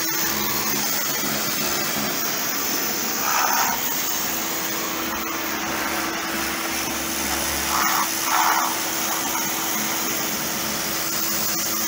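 Kärcher high-pressure washer running: its motor-driven pump hums steadily under the hiss of the water jet blasting dirt off a concrete wall. The noise swells briefly twice, about three and a half and eight seconds in.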